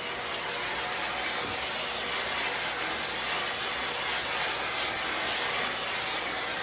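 Small electronics vacuum running steadily with a hissing rush of air, used to clean dust off a guitar pick.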